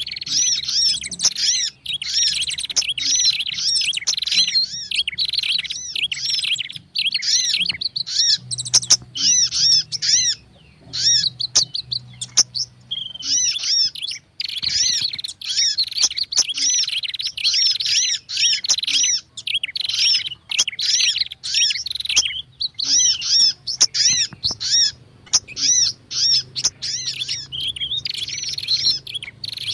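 Bird-lure recording of prenjak (prinia), sogon and kolibri (sunbird) calls mixed together: a dense, agitated chatter of rapid high chirps and repeated arched notes, with only brief lulls.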